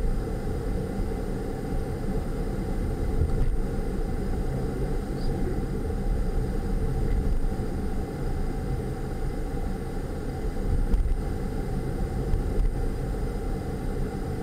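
Steady low rumble of road and engine noise inside a car's cabin as it drives along at town speed.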